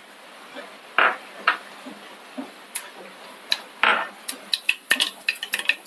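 Mustard seeds starting to pop in hot coconut oil in a pan: a few scattered sharp pops at first, coming faster and closer together near the end as the seeds begin to splutter.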